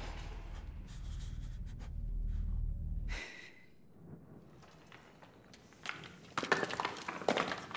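Film sound design: a low rumble for the first three seconds, then a short hiss, a quiet stretch, and a person's sharp, heavy breaths near the end.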